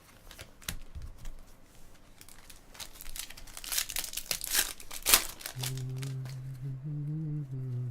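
Foil trading-card packs being torn open and crinkled, with a quick run of crackling that is busiest in the middle. Near the end, a person's voice holds a low, steady note for about two seconds.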